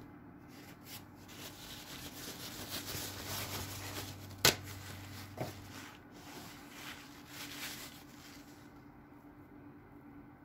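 Oil-paint brush rubbing and dabbing on canvas in a run of short strokes, with one sharp click about halfway through.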